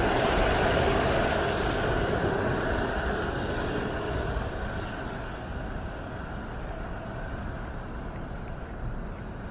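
A passing vehicle's steady rumble and whine, fading away as it moves off.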